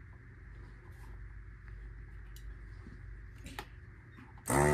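Low steady hum with a few faint ticks, then near the end a handheld desoldering gun's vacuum pump switches on with a loud, steady buzz as it sucks molten solder off a capacitor lead.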